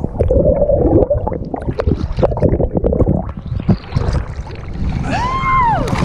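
Sea water sloshing and gurgling against a half-submerged action camera, with a dense low rumble and many sharp splashes and knocks on the housing. About five seconds in, one long high call rises and falls: a person's whoop.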